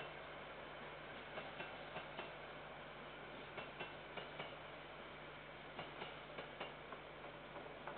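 Faint paired clicks of a passing freight train's wheels over the rail joints, a pair every half second or so, over a steady hiss and low hum.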